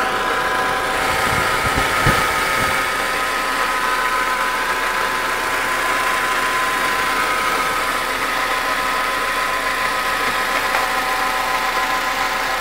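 Volkswagen Passat B5 engine idling with a steady hum of several even, high tones. The owner puts the hum down to a worn air-conditioning compressor bearing.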